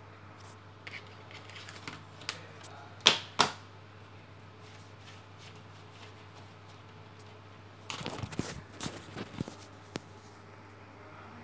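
Scattered sharp clicks and taps, with two loud ones about three seconds in. Near the end comes a dense cluster of knocks and rustle as the camera is handled and moved. A steady low hum runs underneath.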